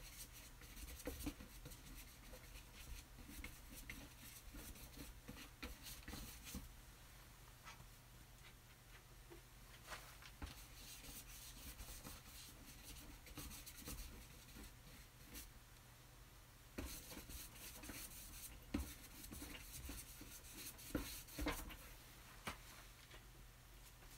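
Paintbrush scrubbing acrylic paint onto a painting, heard as faint, irregular scratchy strokes, a few of them louder in the later part.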